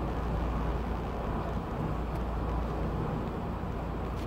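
Hurricane wind and driving rain as a steady rush of noise, with a deep rumble of wind buffeting the microphone.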